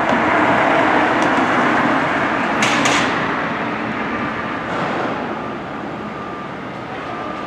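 Train running on its track: a steady rumble and rattle that fades gradually, with a short high squeal about three seconds in.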